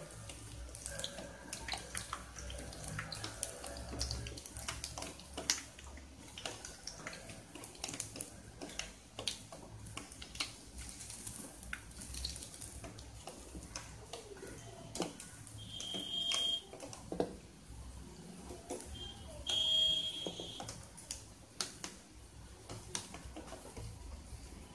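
Urad dal bondas deep-frying in hot oil in a kadai: a steady sizzle of bubbling oil with scattered crackles and pops. About two-thirds of the way through, two short high-pitched beeps sound a few seconds apart.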